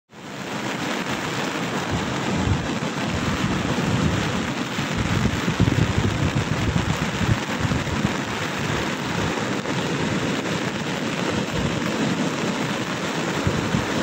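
Heavy surf from a cyclone-stirred sea breaking continuously in a loud, steady wash of noise. Gusting wind buffets the microphone as a low, uneven rumble.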